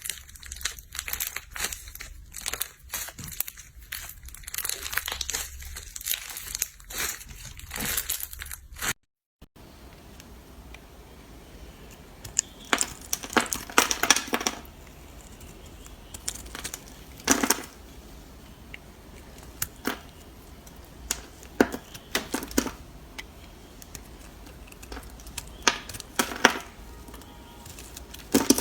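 Dense crinkling and crackling for about nine seconds, then a short break, followed by scattered brief crunching or scraping sounds every second or two.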